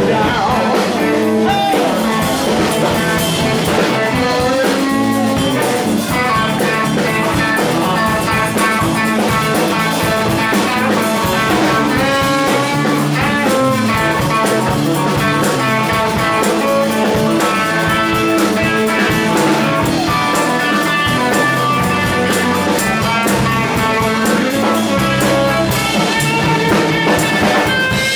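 Live blues band playing an instrumental passage: an electric guitar playing lead over bass guitar and a drum kit.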